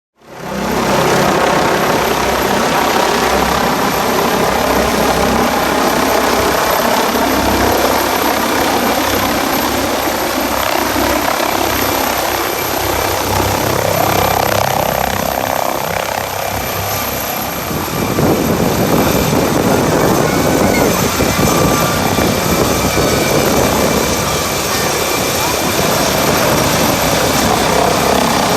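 Air-ambulance helicopter's rotor beating as it comes in to land, almost buried under heavy wind noise buffeting the microphone. The wind gets stronger about two-thirds of the way through.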